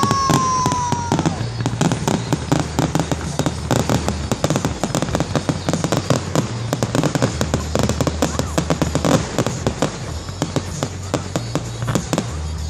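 Fireworks display: a dense, continuous run of bangs and crackling from aerial shells bursting. It opens with a high whistle that falls slightly in pitch over about the first second.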